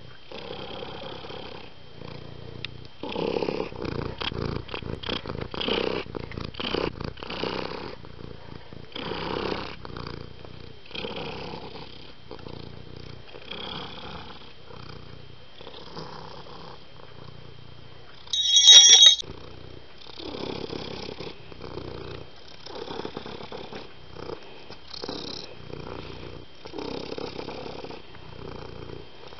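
Domestic cat purring close up, a rhythmic rasping that rises and falls with each breath. About two-thirds of the way through there is one loud, short, high-pitched cry.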